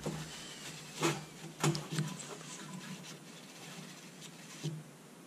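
Light clicks and knocks of small parts and hand tools being handled and set down on a steel workbench, a few separate taps in the first two seconds and another near the end, with faint rag rustling between.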